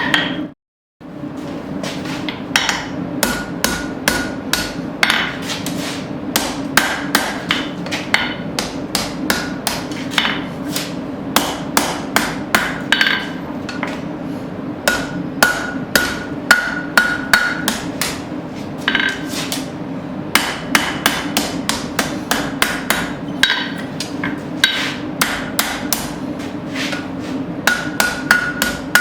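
Blacksmith's hammer striking hot steel on an anvil in runs of about two to three blows a second, with short pauses, each blow leaving a ringing tone. A steady low hum runs underneath, and the sound cuts out for about half a second just after the start.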